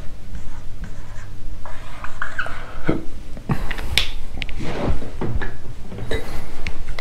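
Dry-erase marker squeaking and scratching across a whiteboard as lines and marks are drawn, with several short sharp taps.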